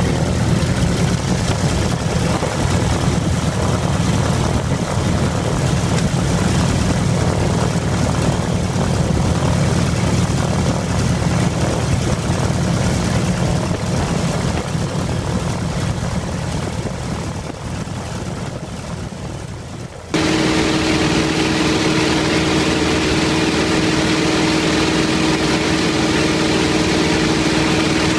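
T-28C Trojan's Wright R-1820 nine-cylinder radial engine and propeller heard from the cockpit, running with a deep, low rumble while taxiing. About twenty seconds in it changes abruptly to the steadier, higher drone of the aircraft in flight, with a steady hum tone.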